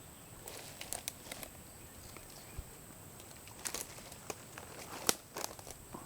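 Footsteps wading along a gravel creek bed: irregular crunches and small knocks from stones underfoot, the sharpest about five seconds in, over a steady high-pitched insect drone.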